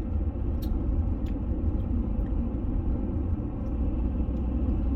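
Steady low rumble of a Honda Element driving along a town road, engine and road noise heard from inside the cabin.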